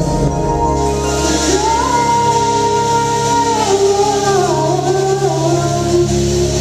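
Funk band playing live, with a singer holding long notes that step down over a steady bass line.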